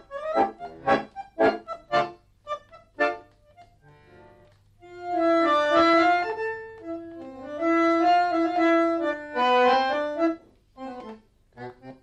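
Solo bandoneon playing a tango passage: short, clipped chords for the first few seconds, then after a brief pause long held chords that rise and fall in volume, and short detached notes again near the end.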